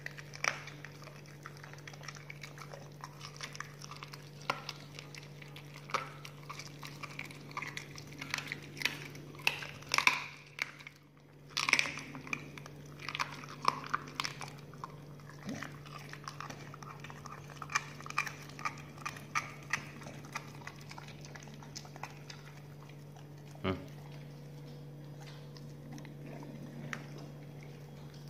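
Pit bull chewing raw chicken feet held out by hand, with irregular crunches and bites of the bones over a steady low hum.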